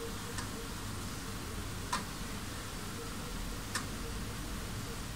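3.5-inch floppy disk drive reading a disk: its motor runs with a steady whir and a faint pulsing tone, while the read/write head clicks three times.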